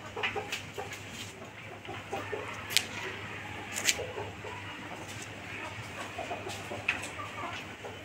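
Chickens clucking faintly in the background, with two sharp clicks about a second apart a few seconds in.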